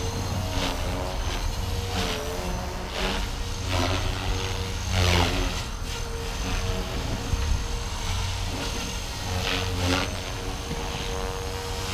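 Blade 330S electric radio-controlled helicopter flying overhead, its rotor and brushless motor giving a steady whine that swells and falls a few times, most strongly about five seconds in and again near the end.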